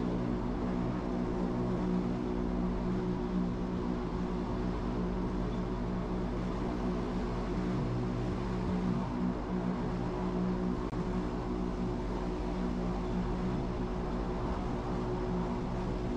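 Wengernalpbahn electric rack-railway train climbing: a steady motor hum with several fixed tones over an even rolling and running noise.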